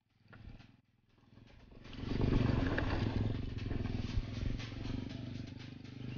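Mountain bike rolling over a rocky dirt trail: tyres crunching on gravel and the bike rattling, rising about a second in to a steady rumble with a low hum under it.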